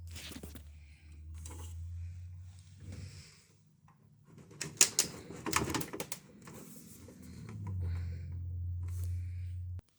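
A low steady hum that fades out for a few seconds and comes back, with a cluster of sharp clicks and rattles in the middle, as of small hard parts being handled; the hum cuts off suddenly near the end.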